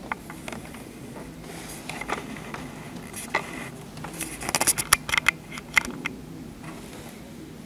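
Scattered sharp clicks and taps over a steady low background noise, coming thickest in a quick flurry about four to six seconds in.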